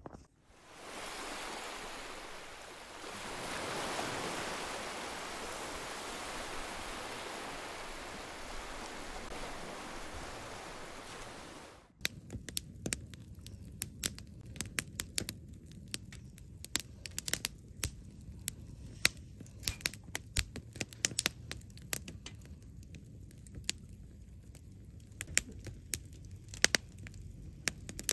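A steady rushing hiss for about the first twelve seconds, then, after a sudden cut, a wood fire crackling with frequent sharp, irregular pops as split firewood burns in a small metal fire grill.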